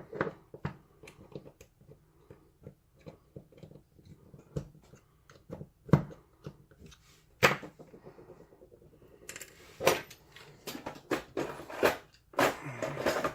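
Scattered small metallic clicks, taps and clinks of a lock and metal tools being handled, with a few sharper knocks and a busier run of clicking near the end.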